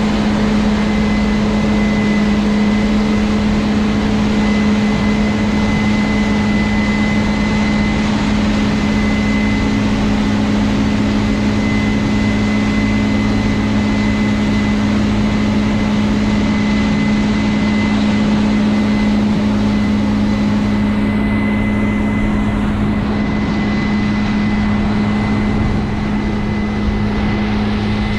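Heavy diesel harvest machinery running steadily at constant speed: a strong low hum with a thin, high steady whine over a wash of mechanical noise.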